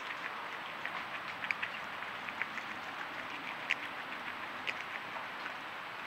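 Agouti gnawing fruit: small irregular crunching clicks, several a second, over a steady hiss of forest background.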